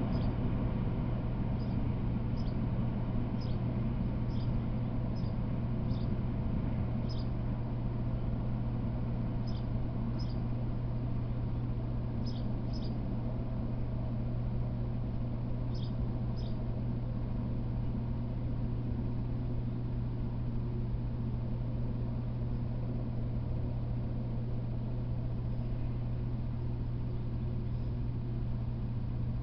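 A small bird chirping: short, high chirps, often in pairs, repeated irregularly through the first half and then stopping, over a steady low hum.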